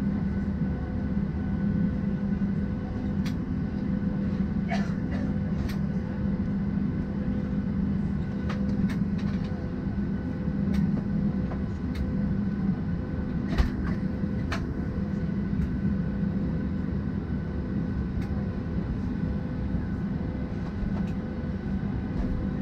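Steady low cabin drone of a parked Boeing 737-700 airliner, with a few faint steady whining tones above it and a few small clicks.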